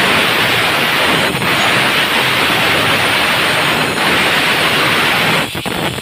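Handheld gas torch burning with a steady, loud hiss, dipping briefly a few times.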